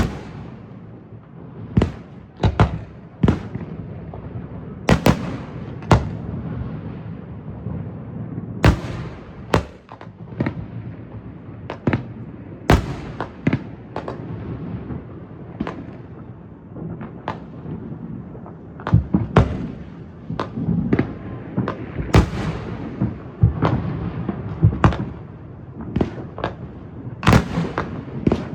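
Aerial fireworks bursting overhead: a long run of sharp booms at irregular spacing over a continuous crackle and rumble, thickening into rapid clusters of bangs in the last third.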